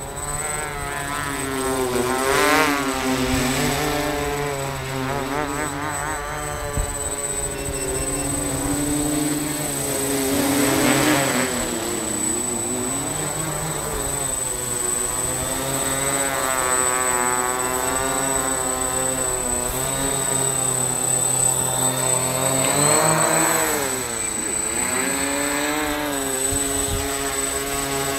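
Electric quadcopter's propellers whirring in flight: a buzzing whine whose pitch keeps wavering up and down as the motors speed up and slow down, with a deeper drop and climb back near the end.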